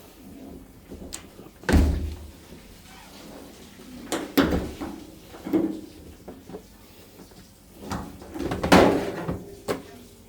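Heavy knocks and bangs from a washing machine's cabinet and tub being handled while its suspension springs are swapped: about five separate thuds over ten seconds, the loudest near the end.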